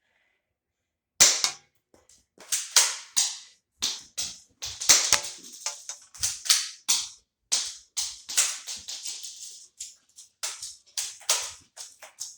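Toy shell-ejecting pistol clacking: a rapid run of sharp plastic snaps, about two or three a second, as the slide is worked and the gun fired.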